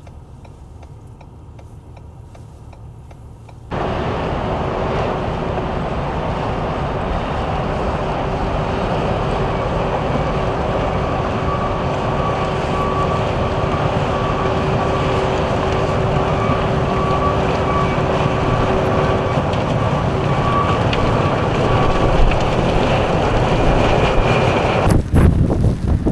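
Strong blizzard wind buffeting the microphone, coming in abruptly about four seconds in after a quieter stretch, with a steady hum underneath.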